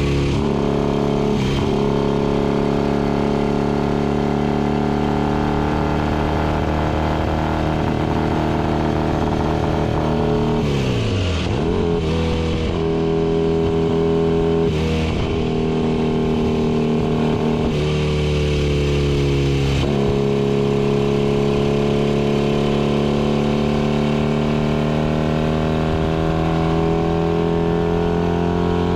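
Vintage racing motorcycle engine running hard, heard from onboard the bike. The engine note drops sharply about ten seconds in as the bike slows, breaks off briefly a few times in the middle, and climbs slowly through the last ten seconds.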